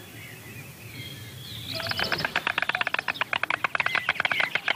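White storks clattering their bills, a fast run of dry clicks that starts just under two seconds in and goes on loud and unbroken. This is the greeting display of the stork pair at the changeover on the nest. Before it, only faint bird chirps.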